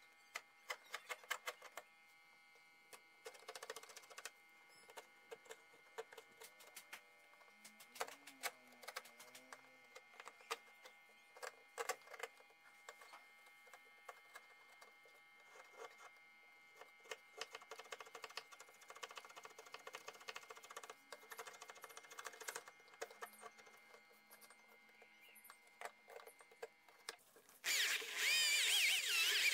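Wood chisel paring and scraping a small piece of wood by hand: irregular light clicks and scrapes in short flurries. About 28 seconds in, loud electronic music starts suddenly and covers everything.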